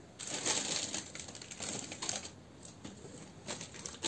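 Fingers pushing fiberfill stuffing into a crocheted amigurumi body: soft rustling and crackling of the fibres and the crocheted fabric, strongest in the first two seconds, then fainter scattered rustles.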